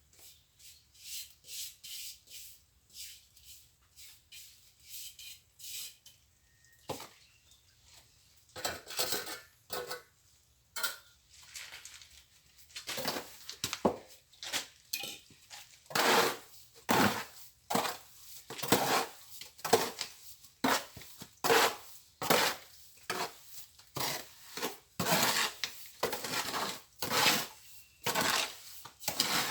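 Steel trowel scraping mortar in repeated strokes, faint and sparse at first, then louder at about one stroke a second from about halfway.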